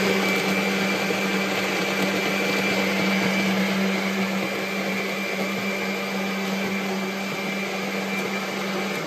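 Electric jug blender running steadily with a constant motor hum and whine, pureeing chopped watermelon into juice with no water added.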